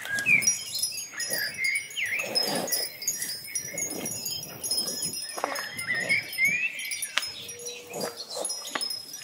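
Ambient soundtrack of many short, high ringing tones like wind chimes, with short rising chirps and soft low swells coming and going about once a second.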